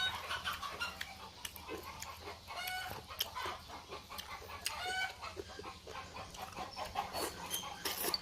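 Chickens clucking, a few short calls a couple of seconds apart, over scattered soft clicks.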